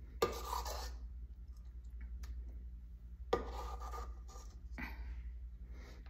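Batter being scraped out of a stainless steel stand-mixer bowl: two firm scrapes about three seconds apart, then two lighter ones near the end.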